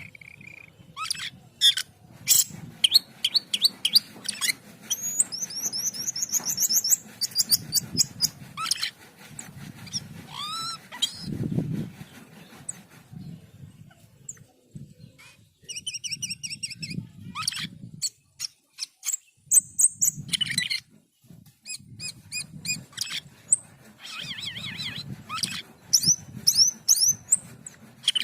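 Cucak keling singing without pause: a busy, varied run of sharp clicks, rapid trills of repeated high notes and rising whistled slides, with a brief lull past the middle. A low rumble of noise lies underneath.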